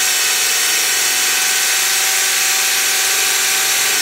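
Cordless drill running at a steady speed, its motor whine over the hiss of a diamond hole saw grinding into a glazed ceramic pot, the bit kept wet with water to stop it overheating.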